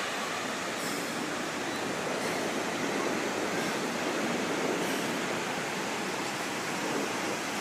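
Ocean surf washing steadily: an even hiss that swells a little about three seconds in.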